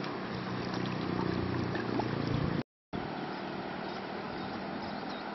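Steady rush of flowing river water, cut off by a brief dropout about halfway through, then continuing.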